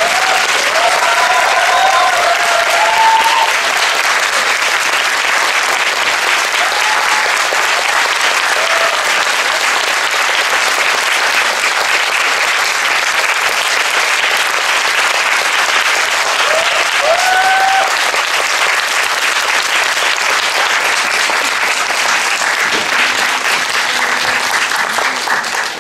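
Theatre audience applauding steadily, with a few short high cheers rising out of the clapping in the first few seconds and again about two-thirds of the way through.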